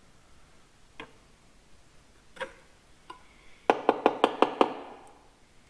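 Steel coil springs from a Centurion tank clutch being handled and set down: a few scattered light clicks, then about a second past the middle a quick run of some seven sharp metallic clinks.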